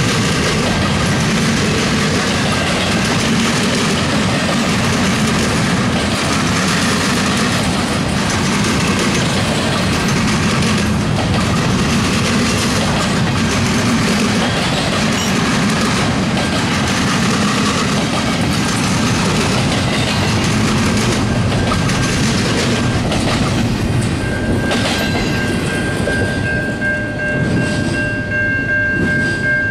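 Intermodal double-stack well cars rolling past on jointed track, wheels clattering over the rails in a steady dense rumble. Near the end the last cars clear, the rumble thins, and a grade-crossing bell ringing comes through clearly.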